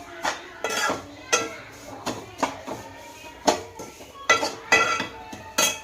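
Metal kitchen utensils striking and clinking against each other: about nine irregular sharp clinks, each with a brief metallic ring.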